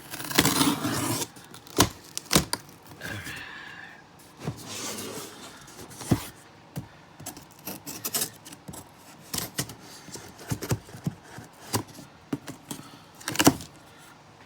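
A knife cutting open a cardboard shipping box: a few scraping cuts, loudest about a second in, among many sharp taps and knocks as the box is handled.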